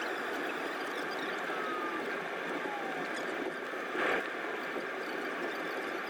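Steady cabin noise of a Ryanair Boeing 737-800 on the ground after landing: a constant rush from the engines and air system, with a faint falling whine in the first few seconds and a brief louder rush about four seconds in.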